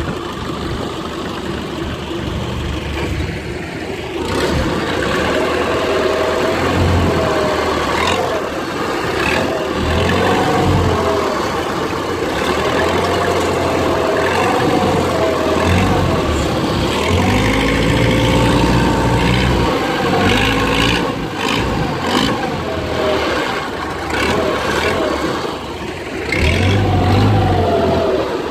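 Small fishing boat's engine running, its pitch rising and falling as the throttle is opened and eased off.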